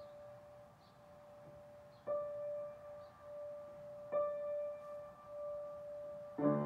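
Solo piano holding a single high note, struck again about every two seconds and left to ring with a slow wavering swell. Near the end a full chord with low bass notes comes in.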